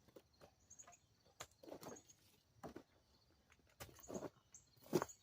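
Scattered clicks and knocks of a tie-down strap being worked loose from a load, the loudest near the end. Faint bird chirps now and then.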